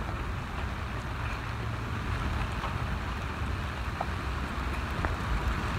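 Storm wind buffeting the microphone as a steady low rumble, over the wash of choppy water around a moored sailboat, with a couple of faint ticks late on.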